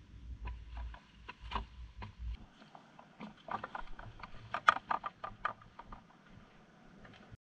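Footsteps in sandals scuffing and crunching over rough rock, with many short, irregular clicks and knocks that come thickest in the middle. A low rumble underlies the first couple of seconds.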